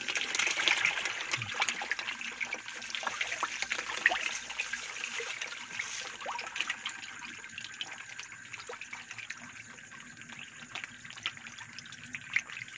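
Young catfish splashing and thrashing at the water surface in a feeding frenzy as feed lands among them. The splashing is thickest in the first couple of seconds, then thins to scattered splashes.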